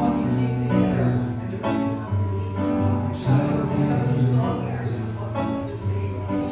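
Pop song played live on a Yamaha MOXF synthesizer keyboard: chords over held bass notes that change about once a second, with a man singing into the microphone.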